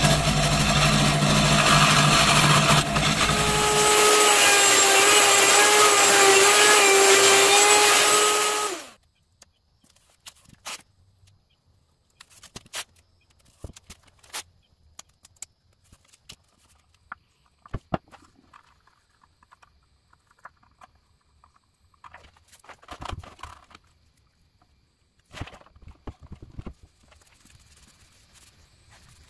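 Bench scroll saw running and cutting through a block of maple, then a steady, higher-pitched motor whine that cuts off sharply about nine seconds in. After that come faint scattered clicks and rustles of masking tape being pulled and pressed onto the wooden box.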